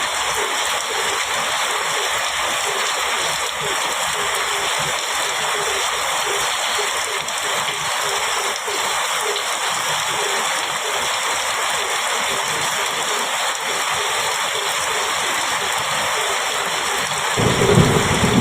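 Heavy rain pouring steadily on a metal roof. Near the end a low thunder rumble comes in.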